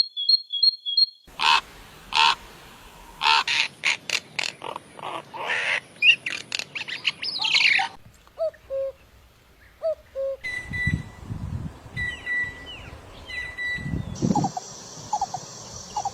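Songbird calls from several different recordings in turn: a quick repeated double chirp, then loud varied chirps and sweeping notes, a few low single notes, and near the end a different bird's whistled notes and falling calls. The changes are abrupt, as in edited clips of different birds.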